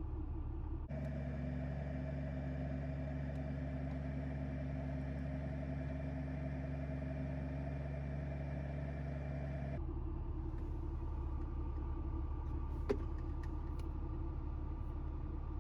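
A 2001 BMW 325i's inline-six engine idling with a steady low hum. The hum changes abruptly about a second in and again near ten seconds, and there is a single click near thirteen seconds.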